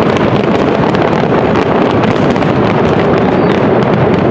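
Fireworks barrage: many overlapping aerial bursts blending into a steady, loud noise, with many small sharp crackles.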